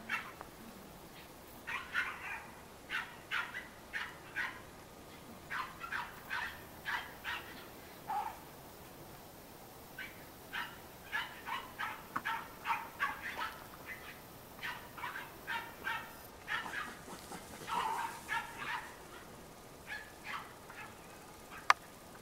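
Cairn terrier puppies yapping in quick runs of short, high yaps, several a second, with brief pauses between runs; a single sharp click near the end.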